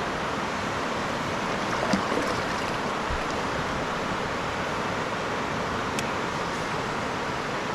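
Steady rush of flowing river water, with a couple of small knocks and clicks about two and six seconds in.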